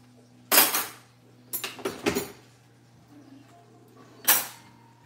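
Metal cutlery and kitchen utensils clattering as they are put into an open kitchen drawer: one clatter about half a second in, a quick run of several a second later, and one more near the end.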